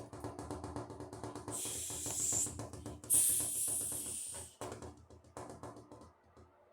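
Vocal imitation of a train: a fast, even chugging with a low steady hum, broken by two long air-brake-like hisses about a second and a half and three seconds in, then fading out.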